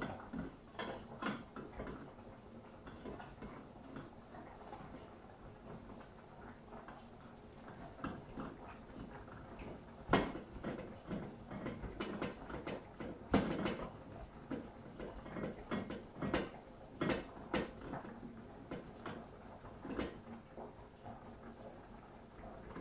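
Irregular clinks and knocks of cookware and utensils being handled at a gas stove, scattered throughout and busiest in the second half.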